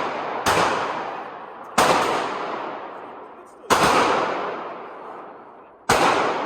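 Four single pistol shots from a .45 ACP 1911 in slow aimed fire, one to two seconds apart, each leaving a long echo that fades before the next.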